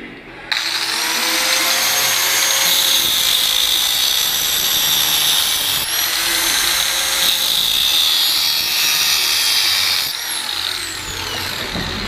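Power tool cutting into a motorcycle exhaust pipe. It starts abruptly about half a second in and runs at a steady speed with a harsh hiss and whine. It then winds down with a falling whine over the last two seconds.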